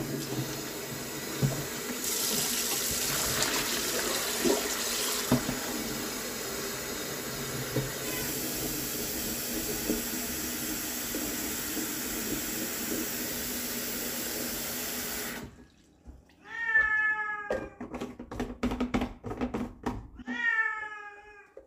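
Kitchen tap running into a large plastic water jug as it is rinsed and filled, the flow cutting off suddenly about fifteen seconds in. Then sharp clicks and knocks as the jug is handled and capped, and a domestic cat meows twice near the end.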